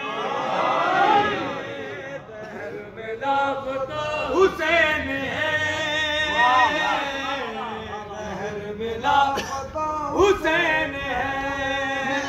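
A man's voice chanting a devotional song in long, wavering held notes, with short breaks between phrases.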